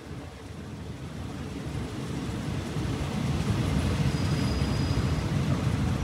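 Rumble of a passenger train heard from inside the carriage. It grows louder over the first three seconds, then runs steadily.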